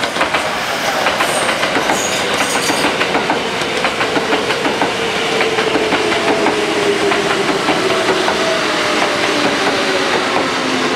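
Kintetsu electric commuter train running past on the adjacent track: steady rail noise with rapid wheel clicks over the rail joints, and a motor whine that falls slowly in pitch.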